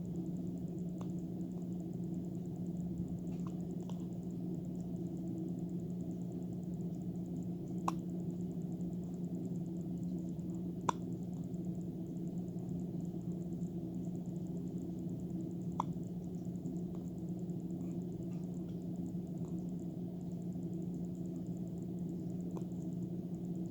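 A steady low background hum with a few faint, sharp clicks scattered irregularly through it, three of them a little clearer than the rest.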